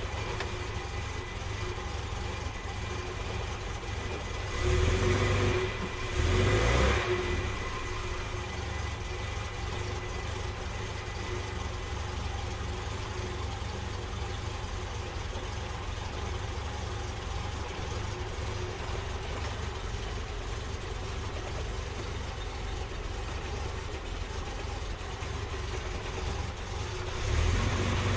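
Series 1 Jaguar XJ6's XK straight-six engine at a slow cold idle just after a hard start without choke, with two short throttle blips a few seconds in and the revs rising again near the end.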